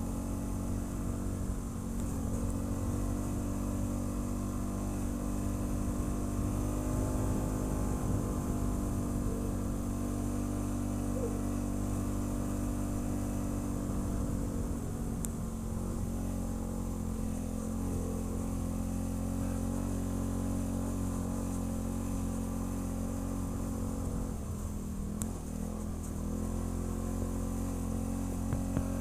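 ATV engine running at a steady, moderate speed while riding, holding an even pitch; about three-quarters of the way through it dips briefly, then picks back up.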